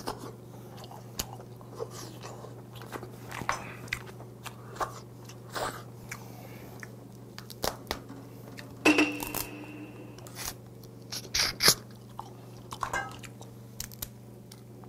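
Close-up eating sounds of steamed red snow crab: sucking meat from the legs, chewing, and the crack and snap of crab shell being broken by hand, in scattered short sharp bursts with the loudest snaps about nine and eleven seconds in.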